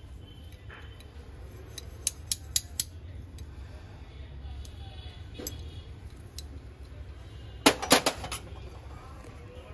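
Brass utensils being handled, clinking against each other: a few light clicks two to three seconds in, then a louder cluster of ringing metal clanks near the end.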